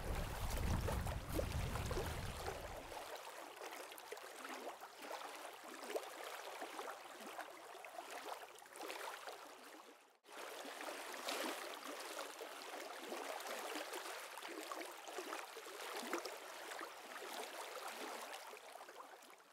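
Water lapping and rippling, a steady splashy hiss. A low rumble underneath dies away about three seconds in, and the sound cuts out for a moment about halfway through before carrying on.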